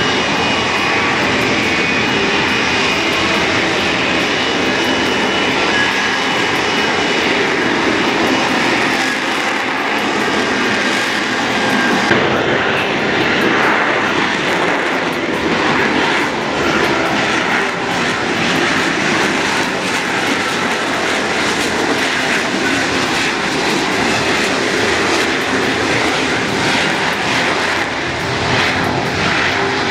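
F-35B fighter's jet engine running loud and steady as the jet hovers on its lift fan and vectored nozzle.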